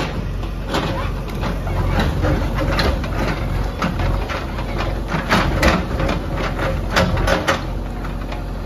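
JCB backhoe loader's diesel engine running steadily, with frequent sharp cracks and knocks as its bucket tears at a felled tree's root ball, roots, soil and stones.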